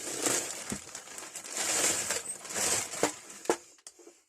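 A bag rustling and crinkling in several swells as a tray is slipped into it, with a couple of sharp knocks about three seconds in.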